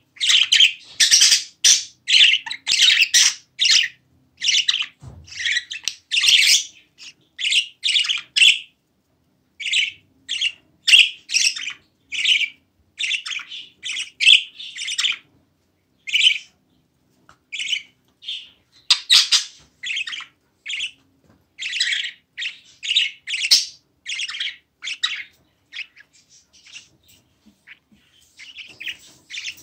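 Budgerigar calls: short, loud calls repeated several times a second in runs with brief pauses, thinning out near the end.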